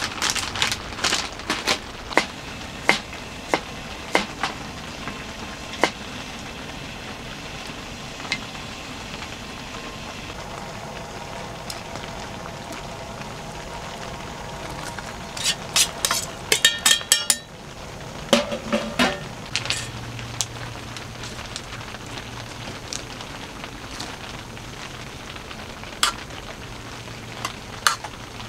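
Camp cooking handling sounds: plastic food packets crinkling and small clicks, then a quick burst of metal clatter from a stainless steel lunchbox. After that a portable gas burner runs with a steady low hum under the lunchbox.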